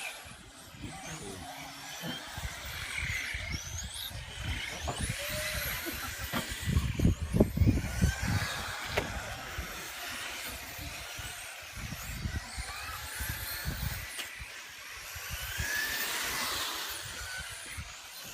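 Electric radio-controlled touring cars running, their motors whining up and down in pitch as they speed up and slow down, over low rumbling wind noise on the microphone that is strongest a few seconds in.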